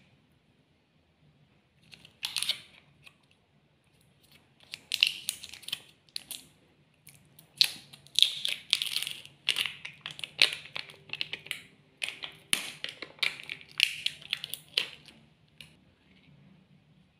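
Shiny foil lid of a plastic snack cup crinkling and tearing as it is peeled off by hand, in short, irregular crackling bursts from about two seconds in until near the end.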